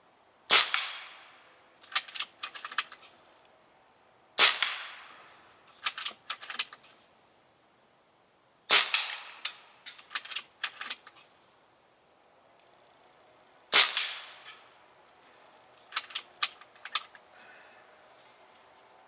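A JTS AirStryke .22 regulated PCP air rifle fired four times, a few seconds apart, each shot a sharp crack with a short fading tail. Each shot is followed about a second later by a quick run of small clicks as the action is cycled for the next pellet.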